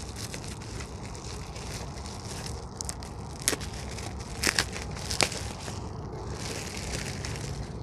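Packaging crinkling and rustling as items are unwrapped and handled, with three sharp clicks in the middle.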